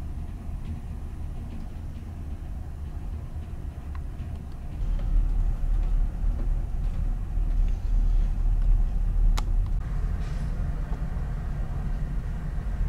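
Steady low rumble of a ferry's engines and hull vibration, heard from inside the ship, growing louder about five seconds in. A single sharp click comes about nine seconds in.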